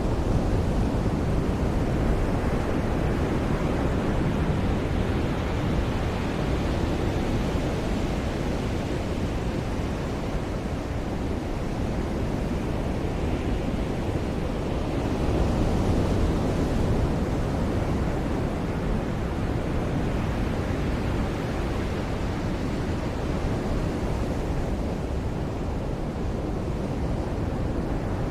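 Ocean surf washing onto a beach: a steady, deep rush with slow swells as waves break, one fuller swell about halfway through.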